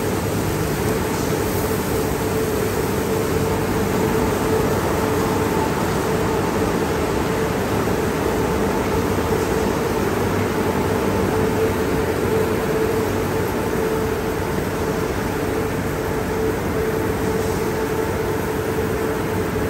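Car wash tunnel side-wash brushes spinning and scrubbing along a car's sides under water spray, a steady rushing sound over a constant machinery hum.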